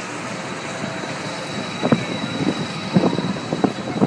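Giant pendulum amusement ride running: a steady rushing mechanical noise, with a few short thumps from about two seconds in as the gondola swings up.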